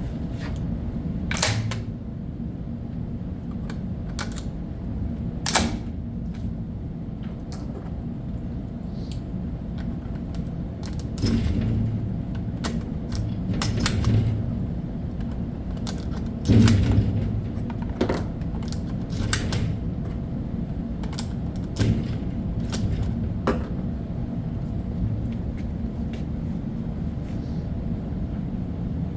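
Sharp metallic clicks and clacks at irregular intervals from the action of a Stoeger M3000 semi-automatic shotgun being handled and cycled, over a steady low rumble. The loudest knocks come about a second and a half in, about five and a half seconds in, and near the middle.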